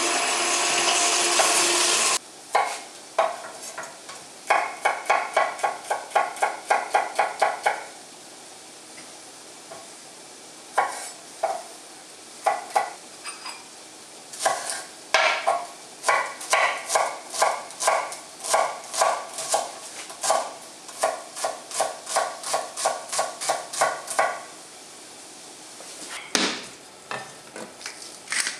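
A KitchenAid stand mixer with its rotary shredder attachment runs for about two seconds and cuts off abruptly. Then a knife chops on a wooden cutting board, mincing garlic and shallot, in bursts of sharp knocks about four a second with short pauses between. Near the end a few clinks and knocks of a wooden spoon in a frying pan.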